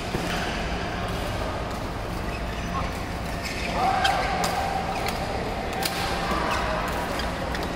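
Badminton hall ambience: scattered sharp racket-on-shuttlecock hits from rallies on surrounding courts over a steady low hum, with players' voices and calls echoing in the large hall.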